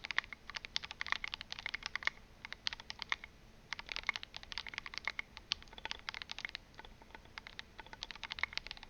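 Fast, continuous typing on a custom mechanical keyboard: a DZ60RGB v2 board in an aluminum case with an aluminum plate and case foam, filmed and lubed Gateron Yellow linear switches and SA-profile keycaps. The keystrokes come in quick runs with brief pauses and stop at the very end.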